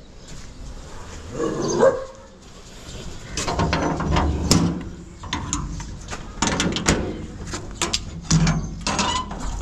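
A dog barking repeatedly, the barks packed into the last six seconds or so.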